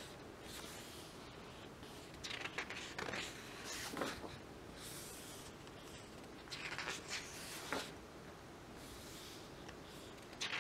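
Glossy pages of a large photo book being turned and smoothed by hand: several soft paper swishes and rustles.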